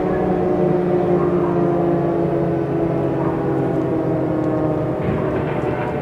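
Steady, many-toned droning alarm sound of a mock emergency alert signal, growing slightly harsher about five seconds in.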